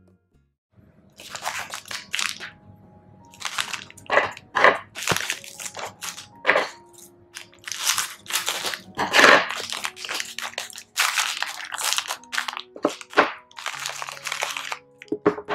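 Plastic wrapper of a Beng Beng Maxx chocolate bar crinkling in irregular bursts as it is cut open with scissors and peeled off, over soft background music.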